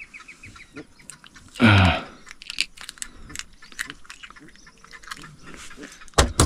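Scattered light knocks and taps, with one louder rushing burst that falls in pitch about a second and a half in, and a sharp knock near the end.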